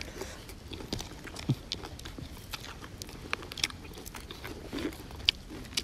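Mouth-close chewing of singju, a crunchy salad of shredded raw vegetables eaten with cabbage leaves: irregular crunches and wet clicks.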